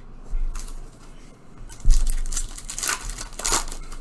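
Foil trading card pack crinkling and tearing as it is ripped open by hand, with a sharp rip about two seconds in and more crinkles after it.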